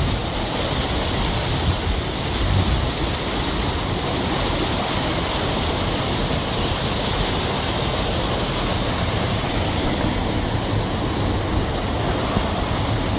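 Steady rush of water pouring through a reservoir inlet at full flow, about 1,100 litres per second.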